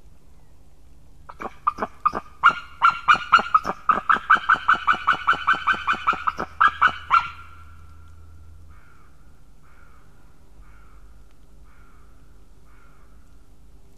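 White-tailed eagle calling: a rapid series of loud yelping calls, about four a second for some six seconds, followed by a few fainter calls about once a second.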